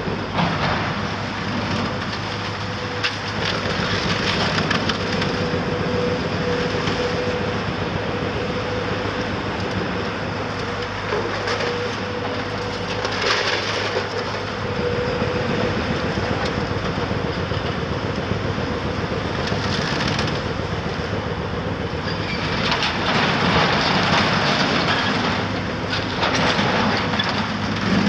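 Caterpillar 374F excavator's diesel engine running steadily during demolition, with repeated crunching and cracking of rubble as the building is broken up. The crunching comes in several bursts, the longest and loudest near the end.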